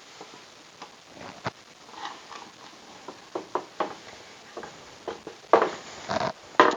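Scattered light clicks, taps and scrapes of wooden parts and hardware being handled while a table saw sled is put together, with a few louder knocks and scrapes near the end.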